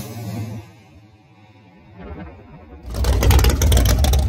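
Drag race car pulling away at full throttle after passing, its engine note fading into the distance. About three seconds in it gives way to the loud, low idle of another race car close by.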